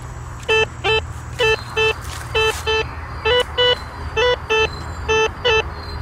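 Metal detector signalling a target: short electronic beeps in pairs, about one pair a second, as the search coil is swept back and forth over the spot. Each beep drops quickly in pitch and then holds a low tone. The detectorist reads this signal as a large object, perhaps a beer can.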